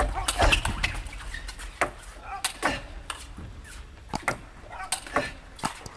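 Table tennis ball striking rackets and the table during a rally: a string of sharp, irregularly spaced clicks.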